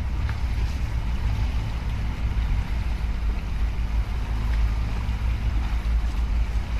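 Deep, steady low rumble and hum of a giant container ship passing close by, with wind buffeting the microphone.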